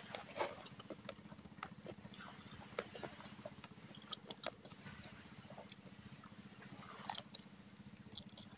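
Close-up mouth sounds of a person chewing and biting cooked octopus: irregular wet smacks and clicks of lips and teeth, over a low steady hum.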